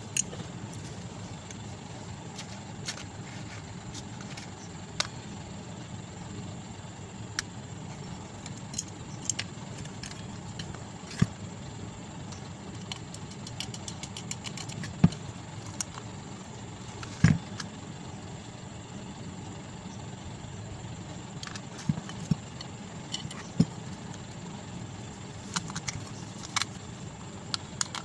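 Scattered small metal clicks and clinks as the bearing cover and aluminium end shield of a stand fan motor are handled and fitted together, over a steady low background hum.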